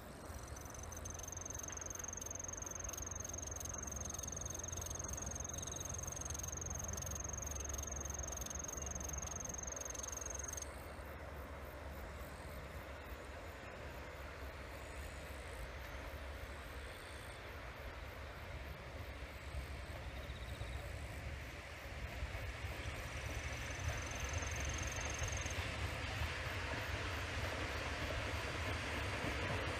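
Freight train of electric locomotives and tank wagons running along the line, a low rumble with a noise that grows louder in the last third as the train draws near. A steady high-pitched whine is heard over it for about the first ten seconds, and a shorter rising one later.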